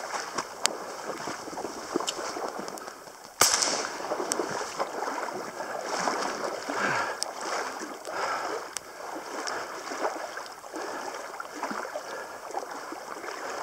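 Wind and rain on the microphone, with the swishing and splashing of wading through flooded marsh reeds and shallow water. A single sharp bang about three and a half seconds in.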